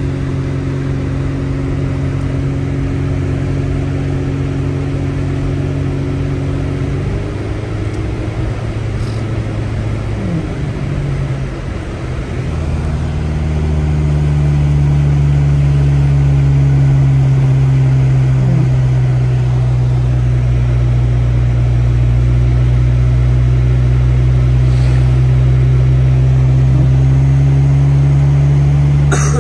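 Car engine and road noise heard from inside the cabin while driving: a steady low drone whose pitch shifts about seven to twelve seconds in, then settles into a louder, steady hum.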